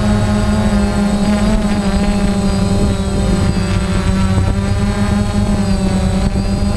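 Quadcopter drone's electric motors and propellers buzzing in flight, heard from the drone's own onboard camera: a loud, steady hum with several higher tones whose pitch wavers slightly as the motors adjust, over rough low rushing noise.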